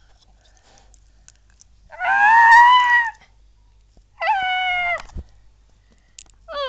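A pet animal close to the microphone gives three loud, drawn-out, pitched calls: the first about two seconds in lasts about a second and rises slightly in pitch, the second sweeps up and then holds for under a second, and a brief third comes near the end.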